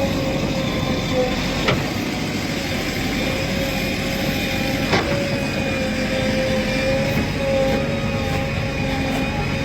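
Diesel engines of a backhoe loader and tractors running steadily, with a steady whine over the rumble. Two sharp knocks, about two and five seconds in.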